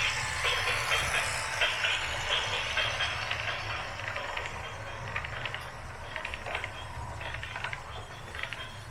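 Radio-controlled model backhoe loader at work: a steady low motor hum under irregular clicking and rattling.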